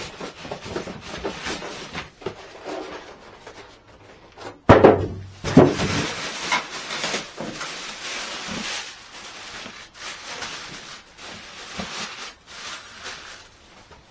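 Rustling and handling of packaging and loose parts during an unboxing, with a couple of louder knocks about five seconds in.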